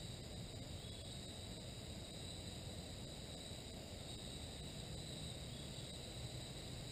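Steady chorus of crickets and other insects, an even high trill that runs on without pause, over a low rumble.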